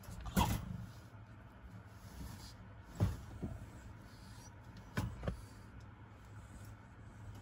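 A towel rustling as it is handled on a wire dog crate, with several short knocks and rattles from the crate, the loudest about half a second in, over a low steady hum.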